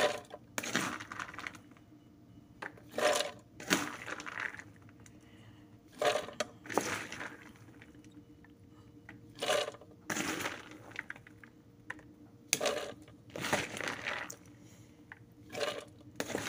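Food processor pulsed in about six short bursts roughly three seconds apart, its blade chopping dry peeled beans with a crunching clatter, quiet between pulses.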